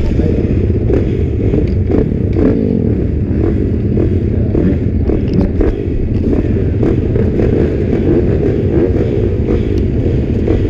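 A line of motocross bikes running together at the starting gate, their engines idling and being revved, so that many pitches rise and fall over one another in a steady din.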